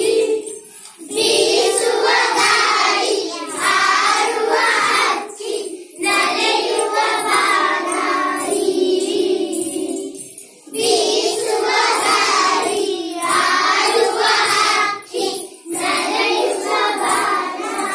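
A group of schoolchildren singing a Kannada action song together, in phrases broken by short breaths every four to five seconds.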